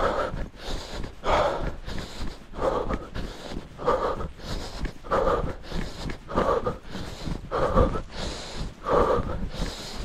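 A man breathing hard: loud, forceful breaths in a steady rhythm, about one every second and a quarter, over a low rumble.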